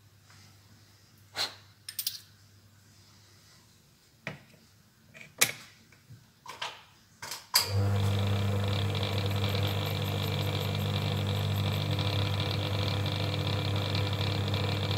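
A few sharp clicks and knocks as the homemade cartridge case trimmer is handled, then about halfway through its electric motor switches on and runs with a steady hum while a brass case is held against the cutter.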